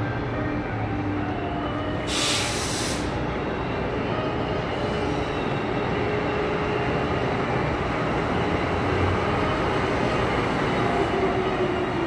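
Amtrak Acela Express electric trainset rolling slowly along the platform track, a steady hum and rumble. A short loud hiss of air cuts in about two seconds in.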